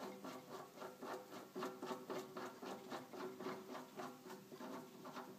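Faint rapid ticking, about five a second, over a low steady hum, as the line boring setup with its tapered bushing is worked apart by hand.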